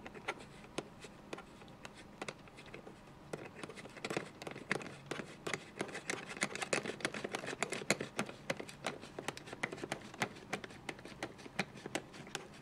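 Hands working an action camera in its clear plastic waterproof case off its plastic mount clip: a run of small plastic clicks and knocks, sparse at first and much busier from about four seconds in.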